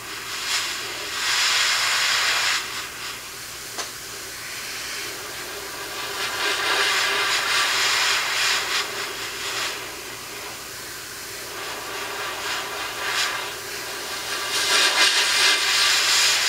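Mr. Hobby Procon Boy PS-267 gravity-feed airbrush spraying paint, an airy hiss that comes and goes in several bursts of a second or more as the trigger is worked, with a steady low hum underneath.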